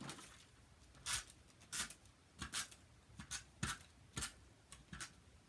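Tape runner dabbing adhesive onto cardstock mats in a series of short scraping strokes, about two a second, with the card being handled and pressed down.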